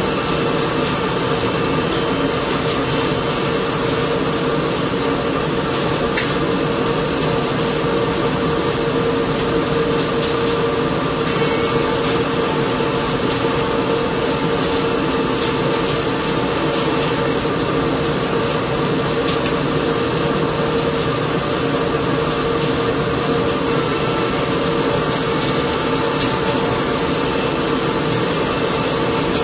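Spindle shaper with a power feeder running steadily, a constant hum with the cutter grooving oak flooring boards as they are fed through.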